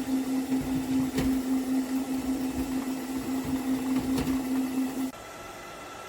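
Robot vacuum cleaner running: a steady motor hum with a strong low tone and two sharp clicks. The hum cuts off about five seconds in, leaving a faint hiss.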